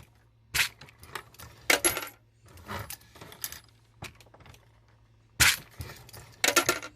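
Brass .223 rifle cases clinking and dropping as a Hornady Lock-N-Load AP progressive reloading press is cycled with a 3D-printed case feeder. Sharp metallic clanks with brief ringing come in irregular clusters, about a second or more apart.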